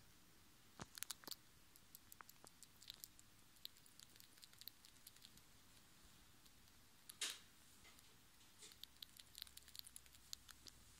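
A five-week-old red squirrel gnawing on a piece of rusk: faint, crisp little crunches and clicks at an irregular pace, with a louder crunch about seven seconds in.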